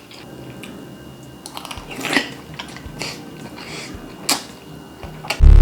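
Crisp crunches of crispy food being bitten and chewed, a handful of separate crunches. Near the end, loud upbeat music starts suddenly.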